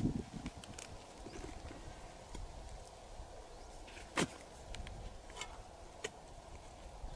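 A hand digging tool knocking into hard, cracked dry mud and breaking up clods, a few scattered knocks with one sharper knock about four seconds in.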